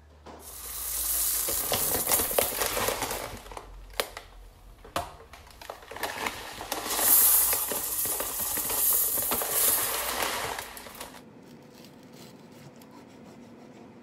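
Crinkling and rustling of a plastic food bag handled at the kitchen sink. It comes in two long crackly stretches and stops about eleven seconds in.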